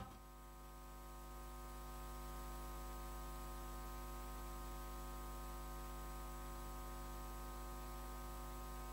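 Faint, steady electrical hum with a buzzy stack of overtones over a light hiss, typical of mains hum in a sound system, cutting off suddenly at the end.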